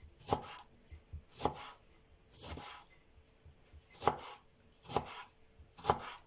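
Knife slicing lemons thinly, a short knock at each cut: about six cuts, roughly a second apart and unevenly spaced.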